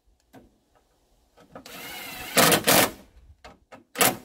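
Plastic cooling-fan assembly being worked out of its mounts on the radiator: a few light clicks, a brief squeaky scrape, then two sharp knocks about two and a half seconds in and another near the end.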